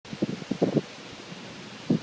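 Wind stirring leaves, a steady hiss, with several short low bumps in the first second and another near the end.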